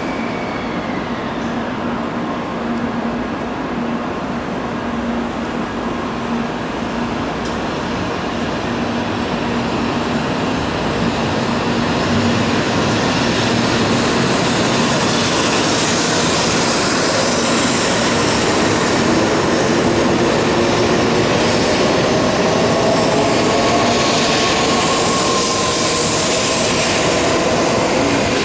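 N700-series Shinkansen train pulling out of a station. A steady electrical hum gives way to the traction motors' whine, which climbs steadily in pitch as the train picks up speed, over a growing rush of wheels and air.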